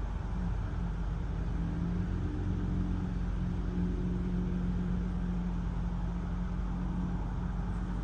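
Steady low vehicle rumble with a steady hum, heard from inside a stationary car.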